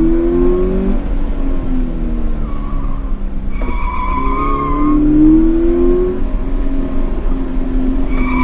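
Toyota 86's 2.0-litre flat-four engine working hard through an autocross course, its revs climbing near the start and again about five seconds in. Tyres squeal through a corner a little after three and a half seconds and again at the end.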